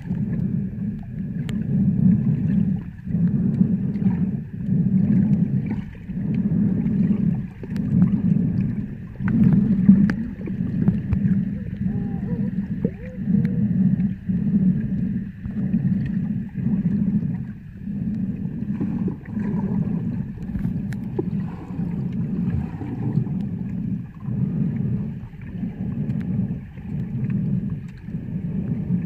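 Muffled underwater water noise picked up by a submerged camera while snorkeling: a low rumbling whoosh that swells and fades about once a second, in time with the swimmer's movement through the water.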